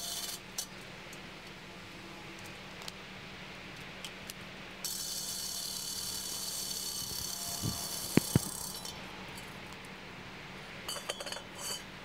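Cordless drill boring into the steel wall of an old gas bottle, running steadily for about four seconds from the middle of the stretch, with a few sharp knocks near the end of the run. A brief burst of the drill at the very start, and a short clatter of clicks near the end.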